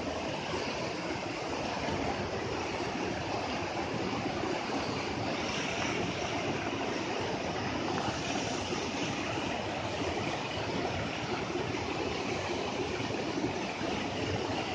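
Fast river rushing over rocky rapids: a steady, unbroken rush of white water.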